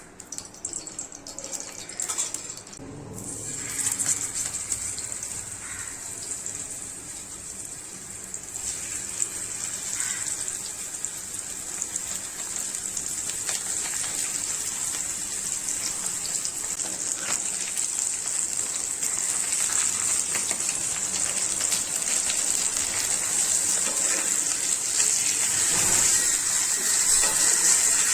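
Fish frying in hot oil: a steady sizzle that grows gradually louder.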